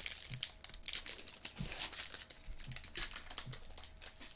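2020 Bowman Chrome trading-card pack's foil wrapper crinkling and tearing as it is opened by hand: an irregular run of small crackles and clicks.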